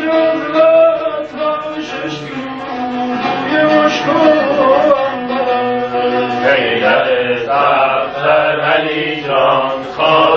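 Men's voices chanting a Yarsani devotional chant, first a slow melody with long held notes. From about six seconds in, it turns into rhythmic group chanting in short repeated phrases.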